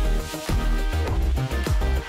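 Electronic background music with a heavy bass beat and repeated falling bass swoops.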